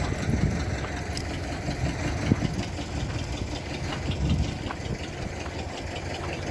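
Diesel locomotive engine idling with a low, uneven rumble and a short sharp knock about two seconds in.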